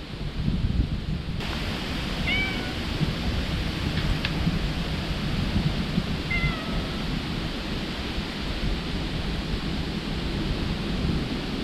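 Strong wind buffeting the microphone with a steady low rumble, over which a cat gives two short meows, about two and six seconds in.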